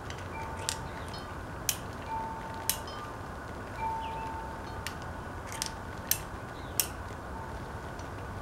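Single-action revolver being handled: a series of irregular sharp metallic clicks as its cylinder is turned and cartridges are worked at the loading gate. Short, light ringing tones sound between the clicks.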